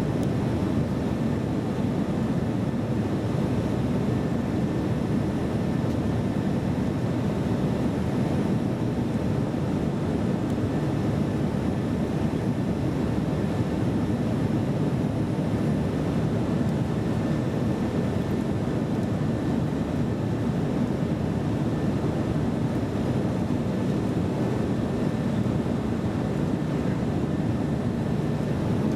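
Steady drone of a jet airliner in flight heard inside the passenger cabin: engine and rushing-air noise with a faint steady hum, unchanging throughout.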